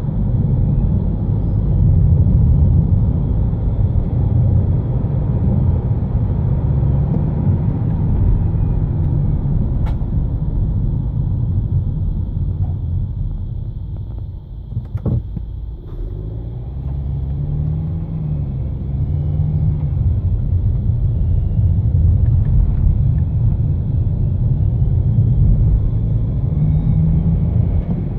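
BMW F15 X5 25d diesel running, a low rumble that swells and eases, with a faint steady high whine over it: the small turbo noise left after a turbocharger repair. A sharp click sounds about halfway through.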